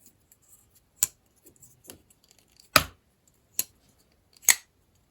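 Petrified Fish PF719 liner-lock folding knife being opened and closed on its ceramic ball bearings. Four sharp clicks come at roughly one-second intervals as the blade seats and the lock engages, the second the loudest, with faint ticks of handling between them.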